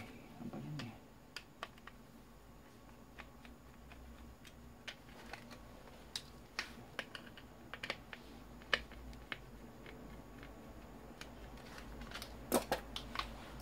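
Irregular small clicks and taps of a screwdriver against the plastic housing and parts of an old pressure rice cooker being taken apart, with two louder clicks near the end.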